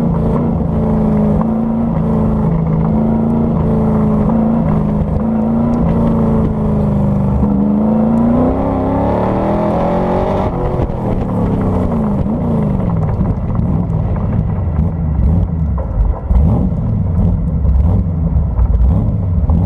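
Factory Five Racing Cobra replica's V8 engine, heard from the open cockpit during an autocross run. The revs hold high and waver, climb about nine seconds in, then fall away steeply about eleven seconds in, leaving a low, uneven rumble at low revs.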